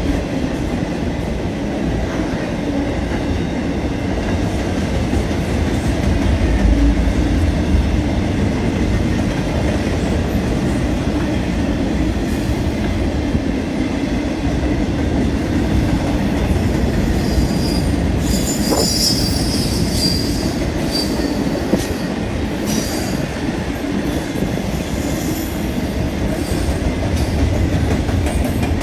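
Long train rolling past: a steady rumble of wheels on the rails, with high-pitched wheel squeal coming in about two-thirds of the way through.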